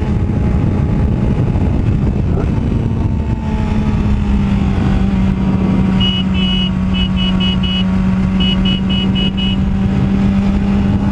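Yamaha R6 sport bike's inline-four engine running at a steady cruise, with wind rush on the microphone. About six seconds in, a run of short high-pitched chirps in quick groups rises over it.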